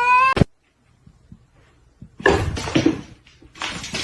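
A cat's drawn-out yowling meow, rising in pitch and cut off abruptly right at the start. After a short pause, from about two seconds in, comes noisy rustling with a few knocks.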